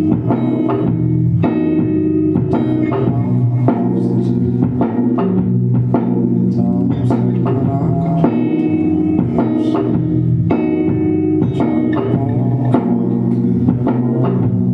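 A band playing live: guitar, bass and drums in a steady, continuous song.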